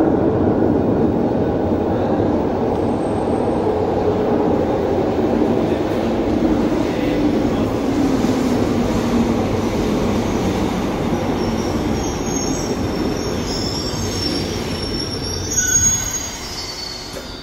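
Glasgow Subway train running through the tunnel and into the station with a steady, loud rumble that drops in pitch as it slows. High wheel squeal comes in over the last few seconds.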